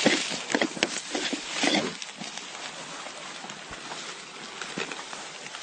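Grass and clothing rustling right against the camera as the wearer moves low through the vegetation, in irregular bursts that are louder for the first two seconds and then quieter, with a few small clicks.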